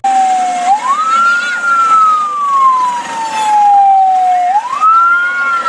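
Police patrol pickup's electronic siren wailing close by: each cycle climbs quickly, then slides slowly down over about four seconds, climbing again twice.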